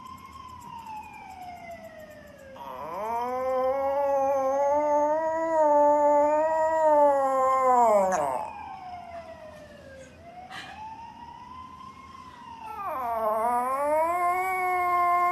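Toy poodle howling: two long, wavering howls a few seconds each, the second running on past the end. Before each howl a fainter single-tone wail rises and falls.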